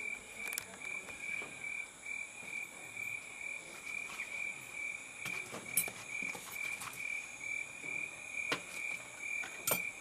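A steady, high-pitched pulsing call, about three pulses a second, from a singing animal that keeps calling, with a few sharp clicks.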